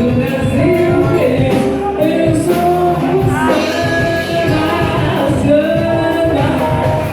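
Live band music with a singer holding long notes over a steady beat.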